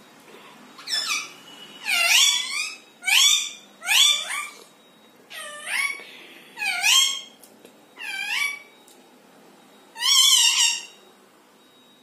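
Green parakeets giving about nine loud, shrill calls, each about half a second long, each sliding down in pitch and hooking back up at the end, with short pauses between them.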